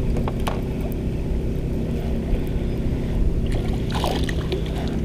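Water lapping against a small fishing boat's hull over a steady low hum, while a spinning reel is cranked, with a few light clicks. A brief splash comes about four seconds in as a small sunfish is reeled up to the surface.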